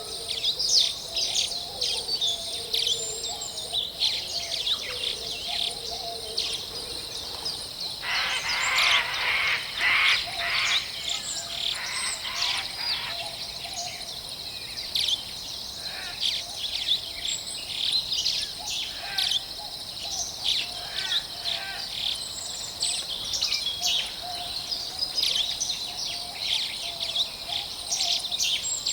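Forest birdsong: many birds chirping and calling in quick, overlapping high notes, with a steady high-pitched buzz underneath. A louder, fuller run of calls comes from about eight to thirteen seconds in.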